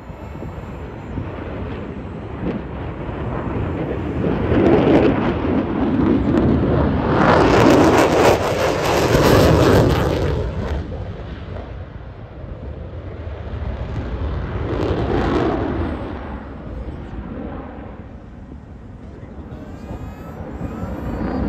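Lockheed Martin F-35A Lightning II jet fighter in afterburner, its single F135 turbofan making a loud, rushing jet noise. It swells to its loudest and harshest from about seven to ten seconds in, fades, swells again around fifteen seconds, then builds once more near the end.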